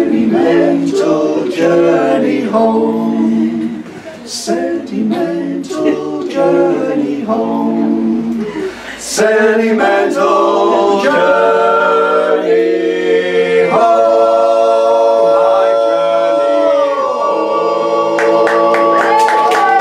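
Barbershop quartet of four men singing a cappella in close harmony. Quick, rhythmic sung phrases give way about nine seconds in to long held chords.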